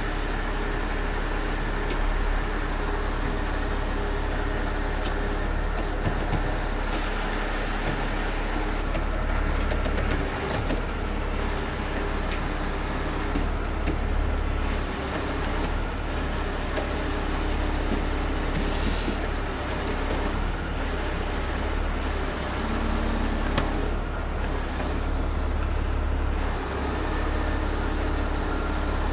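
Heavy diesel engine running at a steady speed under work load, with a faint high whine wavering above it.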